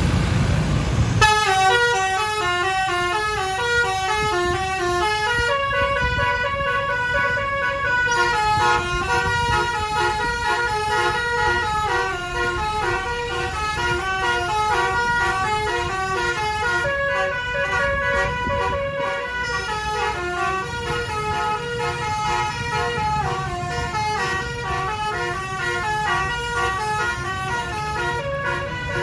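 Bus telolet basuri musical horn playing a long melody, note after note in quick steps, starting about a second in over road and engine rumble.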